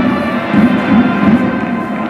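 Japanese baseball cheering section playing a batter's fight song in the stands, with brass carrying the tune over a steady drum beat of about four strokes a second.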